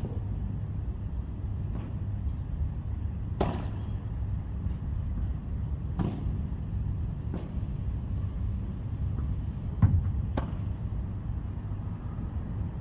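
Padel ball struck by rackets during a rally: sharp hits a second or two apart, the loudest about ten seconds in, over a steady high-pitched whine and a low rumble.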